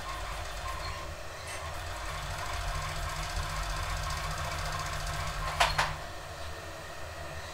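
Industrial overlock machine (serger) running steadily as a fabric strap is sewn through it, a little louder in the middle, with two sharp clicks about three quarters of the way in.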